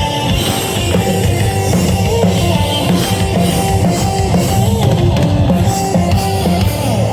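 Metal band playing an instrumental passage with drums, bass and electric guitar, the drum kit driving a steady beat.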